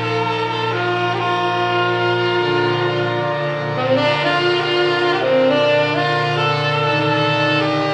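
Saxophone playing a slow melody over a sustained drone of many held tones. The saxophone moves through its notes more actively about halfway through.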